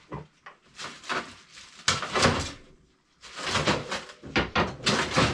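Rummaging in a kitchen cabinet: a run of rustles and knocks, sharpest about two seconds in and busiest through the second half.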